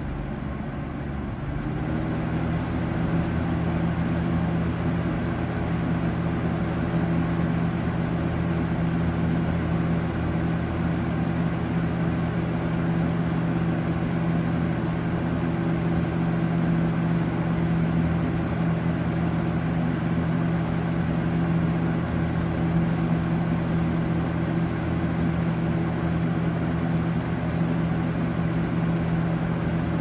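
1991 Eastern Electric 20-inch box fan, a rebadged Lasko 3723 with a three-speed Marco motor, running: a steady motor hum over rushing air. About a second and a half in, the hum rises slightly in pitch and gets louder as the fan spins up to a higher speed, then holds steady.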